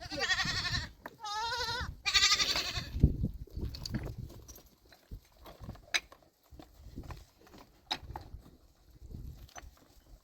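Goat bleating three times in quick succession, each call wavering in pitch. Faint scattered clicks and knocks follow.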